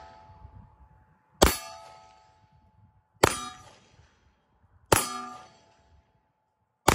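Glock 19 pistol firing four single 9mm shots about two seconds apart, each bullet hitting a steel plate target that clangs and rings out for about a second.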